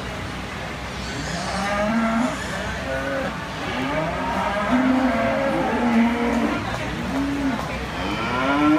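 Beef cattle mooing over and over, several calls overlapping, starting about a second and a half in.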